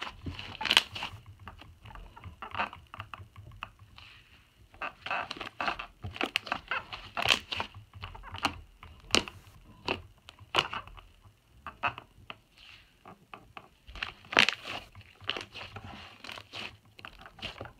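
Hands squishing, pressing and stretching butter slime, making an irregular string of sticky pops and crackles, some sharper and louder than others.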